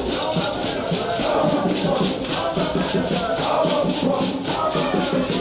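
Music driven by shakers in a steady quick rhythm of about four to five strokes a second, with voices over it.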